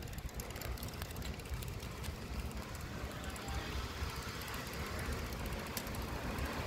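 Wind buffeting the phone's microphone and road rumble while riding along a street, with a few faint clicks.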